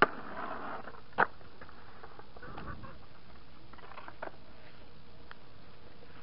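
Skateboard on a concrete ledge: the board hits the ledge with a sharp clack and scrapes briefly, then clacks again about a second later. A few fainter board clacks follow near the middle.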